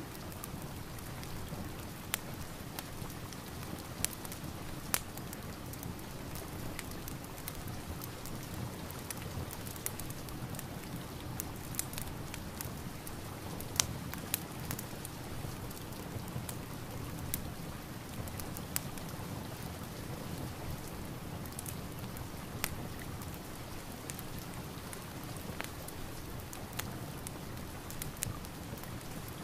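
Steady rain mixed with a fireplace fire, whose sharp crackles and pops come at irregular intervals every second or two.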